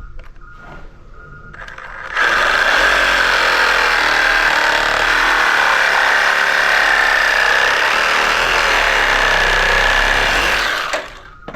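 A handheld power tool runs steadily at full speed for about nine seconds with a high whine, starting suddenly about two seconds in and stopping near the end. Before it come a few light knocks.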